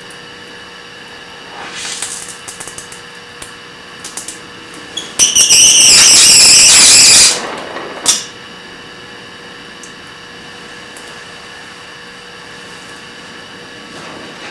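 Welding torch hissing loudly for about two seconds, with a single sharp pop soon after. A few light clicks and taps of metal come before it, as the welding restarts.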